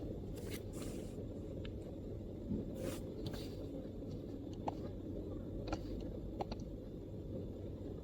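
Scattered MacBook keyboard keystrokes: about ten soft, irregular clicks with a few brushing sounds, over a steady low background rumble.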